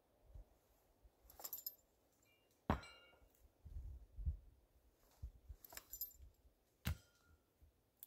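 A few light metallic clinks with a brief high ring, and two sharper knocks about a third of the way in and near the end, from hand-held metal tool work.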